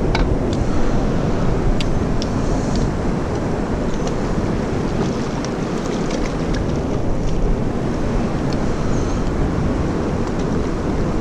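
Fast river current rushing steadily over rocks, with a few faint ticks and clicks now and then.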